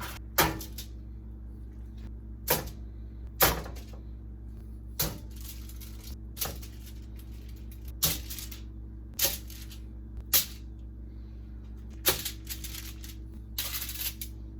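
Irregular sharp taps and clicks, about one every second or two, from handling food and containers in a kitchen, with a short rustle near the end, over a steady low electrical hum.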